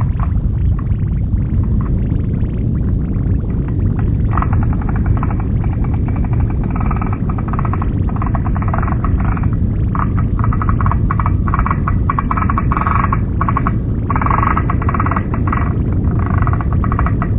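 Experimental noise recording: a loud, dense low rumble throughout, with crackling bursts of harsher mid-range noise coming and going from about four seconds in.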